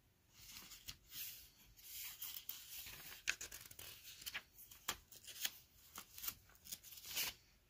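Paper pages of a Bible being leafed through and handled: faint rustling and crinkling with many small irregular clicks.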